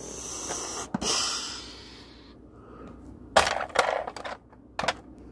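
A toy truck's plastic trailer ramp being lowered: a hiss lasting about a second, then a cluster of short scraping clatters about three and a half seconds in, and one more near the end.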